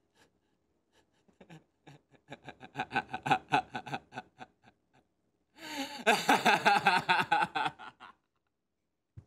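A man laughing: quick pulsed chuckles start about a second and a half in and grow louder, then a louder burst of laughter in the second half breaks off about a second before the end.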